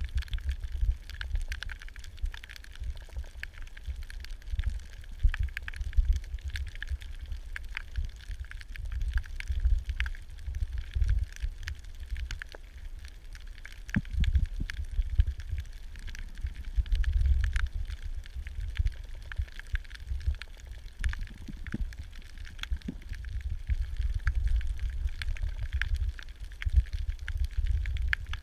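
Underwater camera audio: a constant low rumble of moving water against the housing, with many scattered sharp clicks and crackles throughout.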